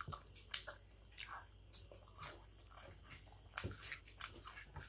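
Faint eating sounds: chewing with mouth clicks, and the soft squish of fingers working rice, as a scattering of short clicks.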